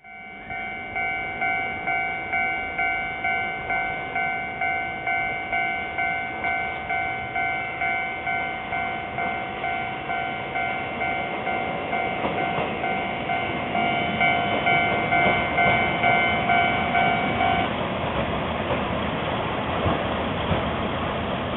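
Japanese level-crossing warning bell ringing in a steady repeating ding, about two strokes a second, that stops suddenly about 18 seconds in. Underneath, a Shimabara Railway KiHa 20 diesel railcar approaches, its engine and running noise growing louder toward the end.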